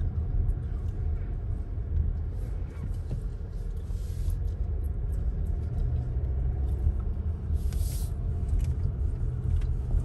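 Car cabin rumble of engine and tyres while driving slowly, with two brief hisses about four seconds apart.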